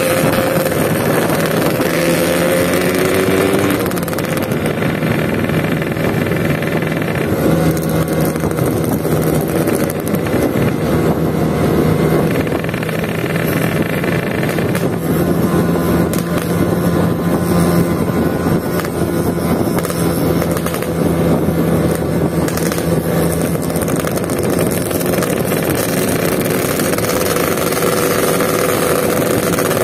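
Yamaha RX-King 135 cc two-stroke motorcycle engine running under way, climbing in pitch over the first few seconds as it revs through a gear, then holding a steady note, with wind and road noise over it.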